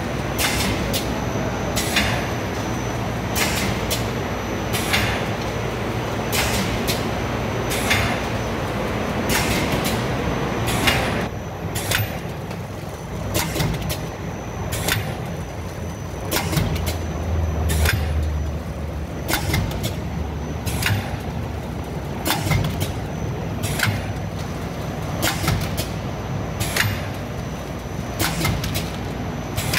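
Automatic vertical pouch packing machine running, filling and sealing shisha tobacco pouches: a steady low hum with sharp mechanical clacks repeating roughly once a second. About a third of the way in, a rushing noise drops away and the hum and clacks carry on.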